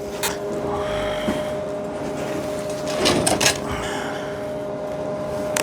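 Steady electrical hum from a welding machine, with a few sharp clicks and a short scraping, clattering stretch about three seconds in as the metal workpiece is handled.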